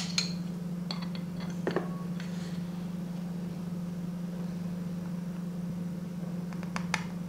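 A plastic measuring spoon is picked up and dipped into a glass jar of salt, giving a few light clicks and taps about a second in and again near the end. A steady low hum runs underneath.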